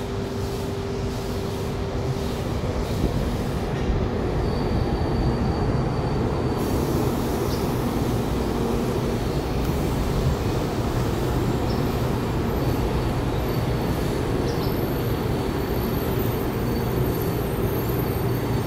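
Taiwan High Speed Rail 700T train pulling into the station along the platform, a steady rushing rumble of the passing cars that grows louder in the first few seconds as the train draws level. A thin high whine sounds over it in the later part.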